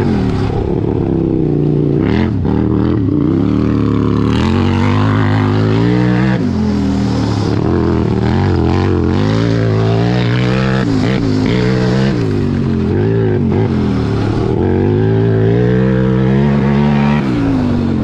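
Sur-Ron electric dirt bike ridden hard on a dirt track while chasing a modified Power Wheels 4x4, the drive pitch rising and falling again and again with throttle and speed.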